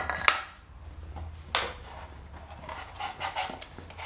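Small hand sander scraping back and forth over a wooden board in short strokes, with a few sharp knocks of the sander against the wood near the start.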